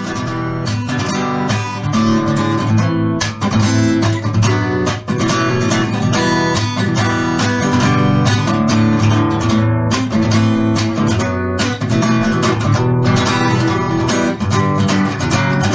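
Acoustic guitar strummed in a steady rhythm, chords ringing with quick repeated strokes.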